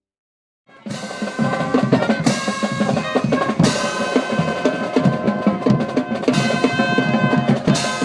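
Background music with a full drum kit, kick, snare and repeated cymbal crashes over sustained tones, starting suddenly after a brief silence at the very beginning.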